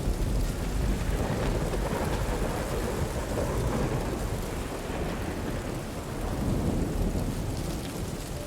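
Steady rain with a long, low rumble of thunder that swells and eases twice.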